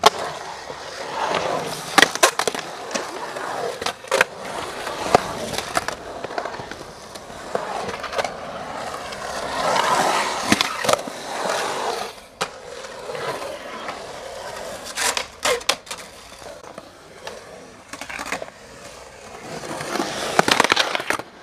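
Skateboard wheels rolling on a concrete bowl, the rumble swelling and fading as the skater carves up and down the walls, broken by several sharp clacks of the board. The rolling ends suddenly near the end.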